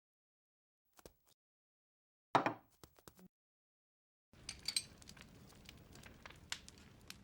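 Separate cartoon sound effects with dead silence between them: two faint clicks, a sharp clank that dies away with a few small clicks after it, then a few seconds of clinking, rattling noise that stops abruptly.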